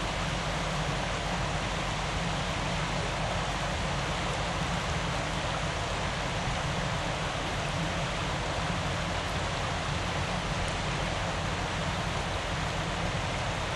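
Shallow river running over and around rocks: a steady rushing of water.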